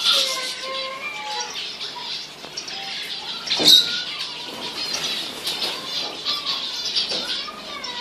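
Mixed flock of aviary finches, European goldfinches and zebra finches among them, chirping and calling over one another in a constant busy chatter of short, gliding notes. A single sharp click stands out a little before halfway.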